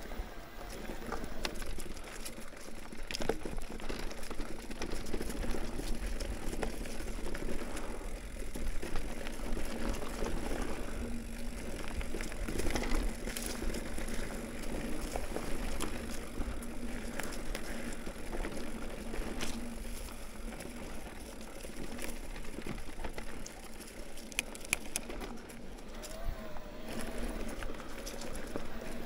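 Mountain bike riding over a dirt trail: tyres rolling over the ground and the bike rattling over bumps, with scattered sharp knocks.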